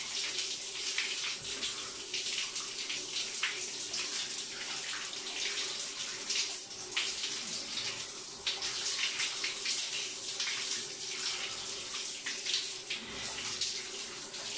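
Overhead shower running, its spray falling on a person and splashing into the shower tray: a steady hiss broken by uneven splashes, with a faint steady hum underneath.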